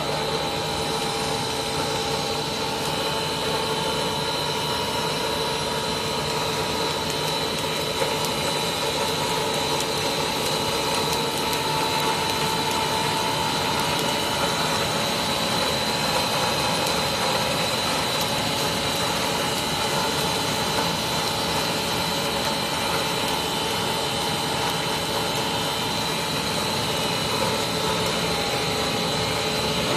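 Three-screw cast stretch film production line running: a steady machine drone with several constant whining tones, unchanging throughout.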